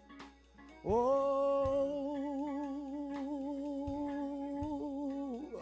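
One voice holding a single long sung note with a steady vibrato for about four and a half seconds, sliding up into it at the start and falling away at the end: a drawn-out moan or hum.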